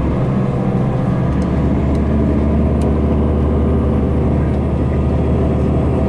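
Engine drone and road noise inside a moving tour bus: a steady low hum that holds without a break.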